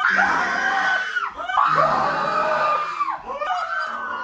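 Girls screaming in fright at a ghost prank: three long, high screams one after another, with voices overlapping.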